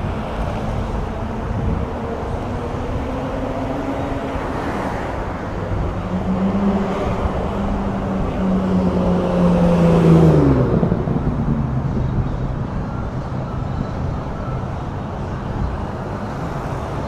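Road traffic noise. About ten seconds in, one vehicle passes close by: its engine note grows loud and then drops in pitch as it goes past.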